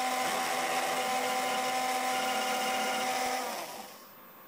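CNC spindle motor running at speed with a steady whine, then winding down and stopping near the end.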